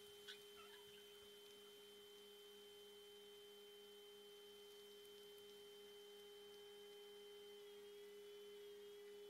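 Near silence with a faint, steady, pure-toned hum. A few faint ticks come about a third of a second in, and the highest tone starts to waver near the end.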